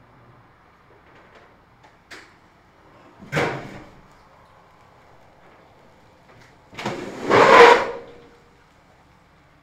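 Subaru STI with a dead engine being rolled by hand into a garage, no engine running: a faint click, then a short clunk and rumble about three seconds in, and a louder, longer one around seven seconds in as the car comes in.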